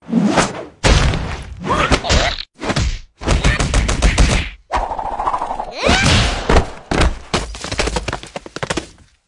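Cartoon slapstick sound effects: a fast string of hits, thuds and whacks in separate bursts with short gaps, mixed with short sliding squeals.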